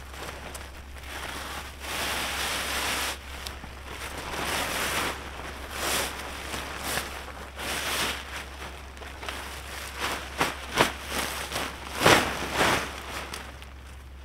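Featherstone UL Peridot 2P tent's rainfly fabric rustling and crinkling as it is unfolded and shaken out, in uneven surges. There are a few sharper, louder flaps near the end as it is lifted over the tent.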